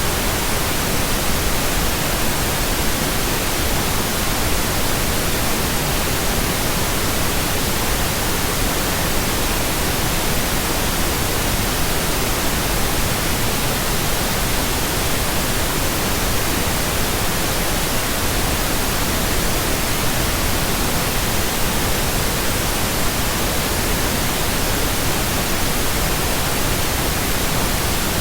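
Steady electronically generated pink noise: an even, unchanging hiss spread across the whole range of pitch, with no tones or events.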